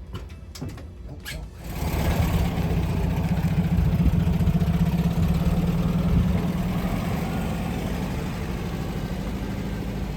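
A few light clicks, then a vehicle engine starts about two seconds in and runs steadily at idle.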